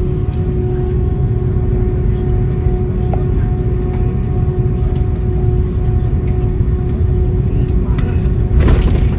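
Rolls-Royce Trent 700 engines of an Airbus A330 at takeoff power, heard from inside the cabin: a heavy, steady low rumble with a steady engine tone above it. A brief, louder rush of noise comes near the end.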